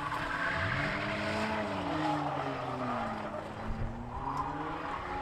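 Compact coupe's engine revving up and down as it spins donuts, its tyres spinning on the asphalt and throwing smoke. The engine pitch climbs about a second in, drops through the middle and climbs again near the end.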